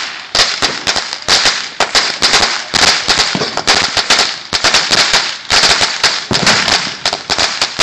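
A string of 4,000 firecrackers going off in a rapid, unbroken rattle of sharp cracks.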